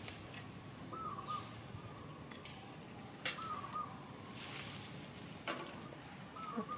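A short warbling animal call, repeated three times a few seconds apart, over a faint steady hiss. A few sharp clicks come between the calls; the loudest, about three seconds in, is the loudest sound.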